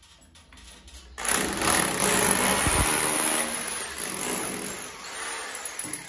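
A motor running: a loud, steady mechanical whir that starts abruptly about a second in and fades away over the last couple of seconds.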